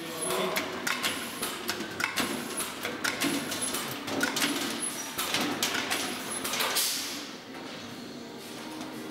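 Pneumatic Rivclinch clinching tool joining a galvanized sheet-metal duct collar: a run of sharp metallic clunks, about one or two a second, over the rattle of thin sheet metal being turned. A brief rushing hiss comes about seven seconds in.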